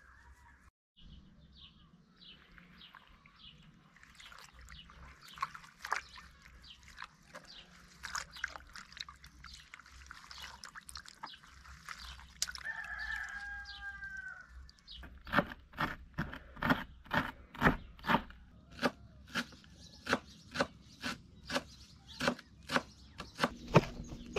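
A rooster crows once, about halfway through, among scattered light clicks. From a little past the middle, a steady run of sharp knocks, about two a second, becomes the loudest sound.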